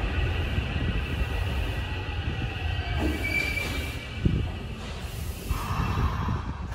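Tokyo Metro 8000 series subway train braking to a stop at the platform. Its running rumble eases as it slows, with a brief high wheel squeal about three seconds in.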